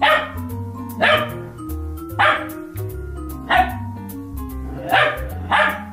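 Small dog barking, six sharp barks about a second apart, the last two closer together, over background music.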